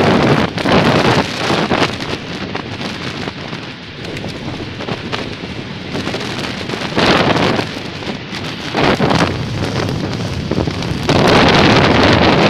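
Wind rushing over the microphone of a camera on a bicycle during a fast road descent. It swells in gusty surges several times and turns loudest near the end.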